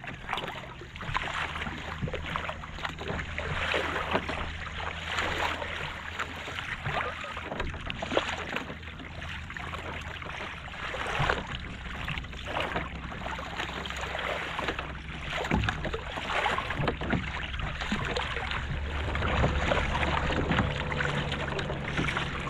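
Double-bladed kayak paddle dipping and splashing into the sea, stroke after stroke, with water sloshing along the kayak's hull.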